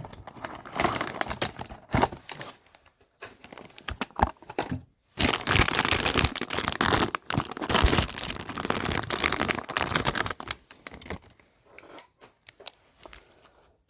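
Blind-box packaging being torn open and crinkled by hand: a cardboard box and the plastic wrapping around the figure inside, in irregular rustling bursts that are busiest from about five to ten seconds in.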